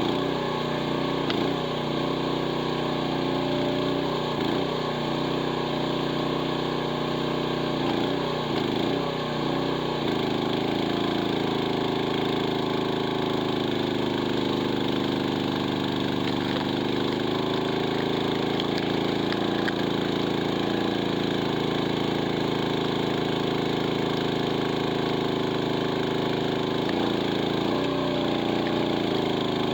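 Chinese mini excavator's engine running steadily while its hydraulics work a wood splitter attachment. Its note wavers up and down every second or so in the first third and again near the end, and holds steady and fuller in between.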